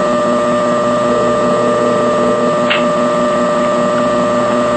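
A loud, steady electrical hum made of several fixed tones, with no change.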